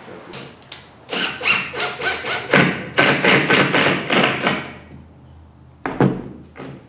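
Cordless drill working into a wooden board in a run of short pulses, followed by two short knocks near the end.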